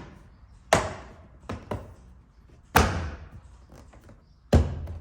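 Sharp knocks of a hand pressing and striking plastic truck door trim to snap its clips into place: three strong knocks and two lighter ones.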